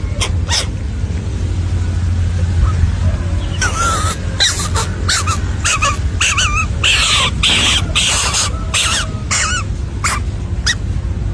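A series of harsh, wavering animal calls, most likely a bird squawking, repeated many times from about three and a half seconds in, over a steady low hum.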